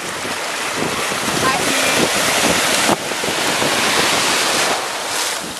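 A wave breaking in shallow surf and rushing through the water. The wash builds over the first couple of seconds, stays loud, and eases off near the end.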